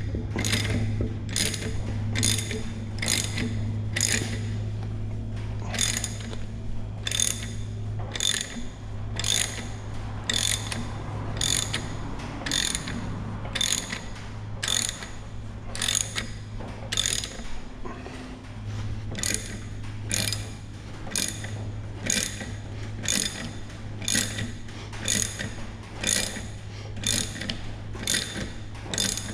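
Hand ratchet wrench clicking in regular strokes, a little more than one a second, as a bolt is turned out on a Ford Coyote V8 engine being torn down, over a steady low hum.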